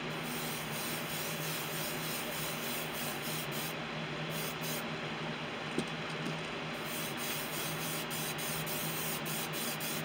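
Iwata airbrush spraying paint onto a lure blank, its air hiss going on and off in several passes with short pauses near the middle, over a steady low hum.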